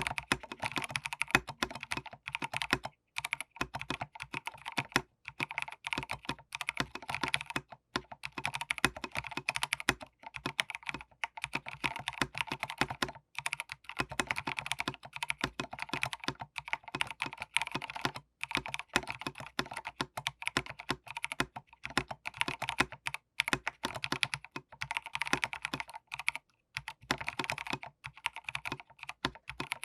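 Typing on a Rama Works Kara 60% mechanical keyboard with Gateron Cap Milky Yellow switches and Holee-modded Durock V2 stabilizers lubed with Krytox 205g0. A fast, continuous run of keystroke clacks, with a few short pauses. The stabilizers no longer rattle, though the case sounds somewhat hollow to the builder.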